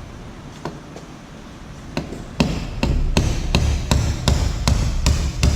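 Copper hammer striking metal to drive a pin into a differential: a couple of light taps, then from about two and a half seconds in a steady run of firm blows, about three a second.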